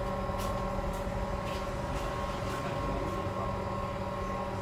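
Steady electric machine hum holding a few fixed pitches, with faint light ticks roughly every half second in the first part.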